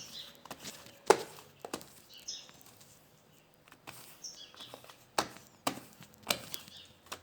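Slime mixed with kinetic sand being squeezed and pulled by hand, giving irregular sticky clicks and pops.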